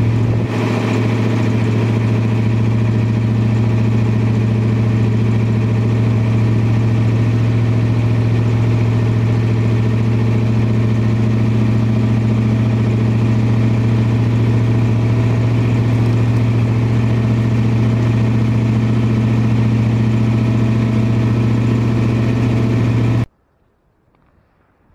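A 1980 Chevrolet 454 big-block V8 idles steadily, warming up after a frigid cold start, heard from beside the tailpipe. It cuts off suddenly near the end.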